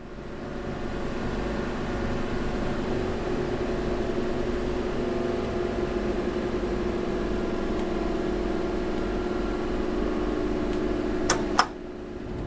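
Machinery running with a steady mechanical hum carrying several steady tones. It fades in over the first second or two, and two sharp clicks come near the end before it drops away.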